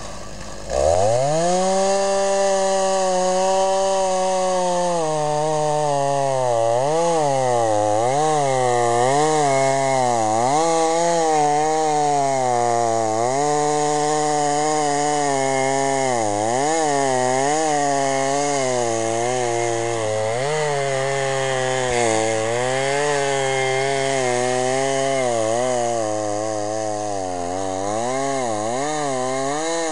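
Gas chainsaw on a Norwood chainsaw mill revving up about a second in, then ripping lengthwise through a log. Its engine pitch dips and recovers over and over as the chain takes load in the cut.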